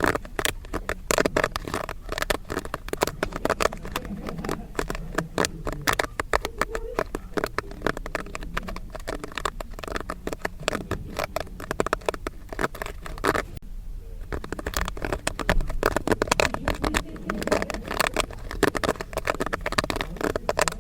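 Popcorn kernels popping rapidly: a dense run of sharp pops, many a second, with a brief lull about two-thirds of the way through.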